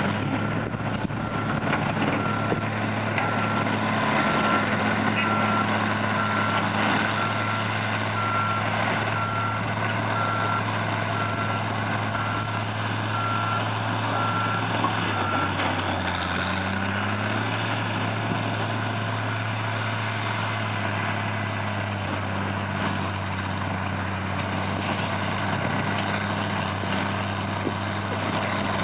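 Heavy diesel excavators running steadily, with one engine briefly revving up a little past the middle. A backup alarm beeps at an even pace for about the first half, then stops.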